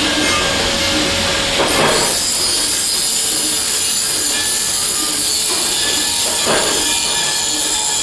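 Industrial machinery running loudly and steadily, with high-pitched metallic whining tones over a dense hiss. Two brief swells of noise come about five seconds apart.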